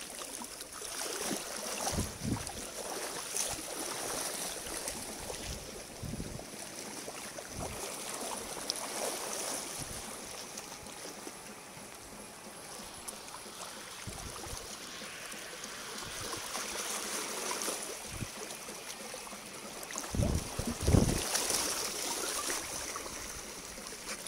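Water washing and gurgling among rocks, with a faint steady high-pitched hiss above it. Low bumps of handling on the microphone come now and then, loudest in a cluster near the end.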